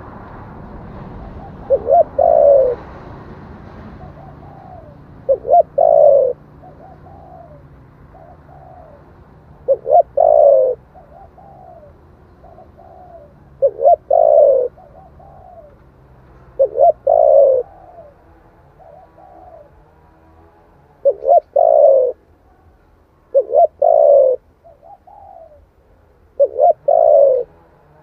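Spotted dove cooing: about eight phrases, one every three to four seconds, each a short note or two followed by a longer, louder coo and then a few fainter trailing notes.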